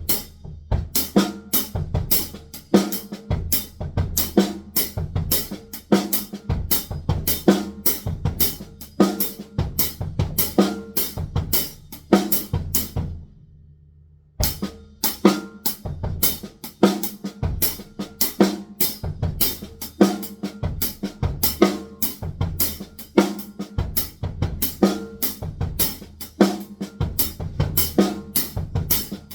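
Drum kit being played, a fast steady groove of snare, bass drum, hi-hat and cymbal hits. It breaks off about halfway through, leaving only a low ring for a couple of seconds, then starts again.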